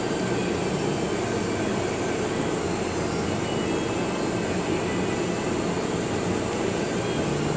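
Steady, unchanging mechanical drone with an even whoosh, like workshop ventilation.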